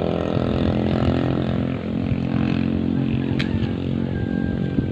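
A small engine running at a steady speed, with a single sharp click about three and a half seconds in.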